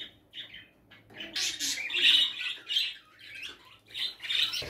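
Budgerigar squawking in several short bursts, loudest around two seconds in and again near the end.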